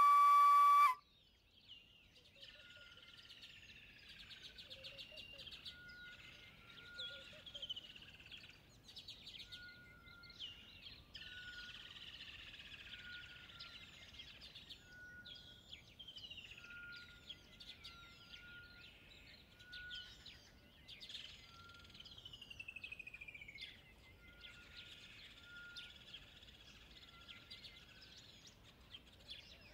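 A held instrumental note cuts off about a second in, followed by faint bird calls throughout: many quick chirps and falling whistles, with a short repeated tone underneath.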